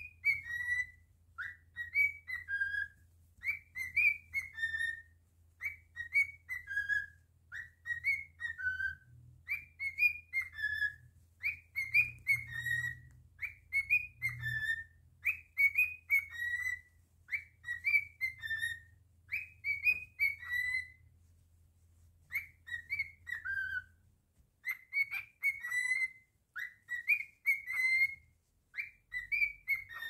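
Male cockatiel whistling its song: phrase after phrase of quick whistled notes that rise and fall, about one phrase a second, with a break of about three seconds past the two-thirds mark.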